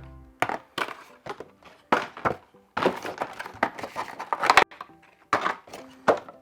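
A figure's cardboard box and packaging being opened and handled by hand: a string of irregular sharp knocks and crackles.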